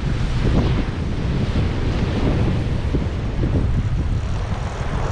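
Wind buffeting the microphone: a steady, loud, low rumble that flutters irregularly.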